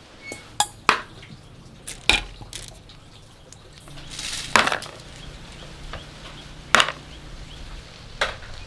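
Kitchen clatter: about six sharp knocks and clinks of utensils against cookware, spread out, with a short splash of water just after four seconds in.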